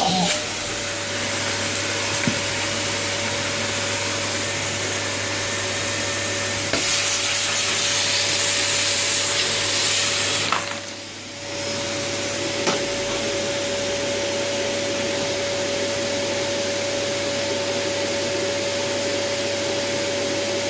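Vacuum cleaner running steadily with a constant motor hum. It turns hissier and louder for a few seconds in the middle, then drops in level briefly about eleven seconds in before steadying again. A few light knocks come near the start and about two thirds of the way through.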